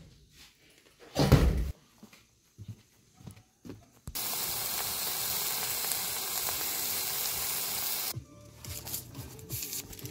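A loud thump, then about four seconds of hot oil sizzling steadily as food fries, starting and stopping abruptly.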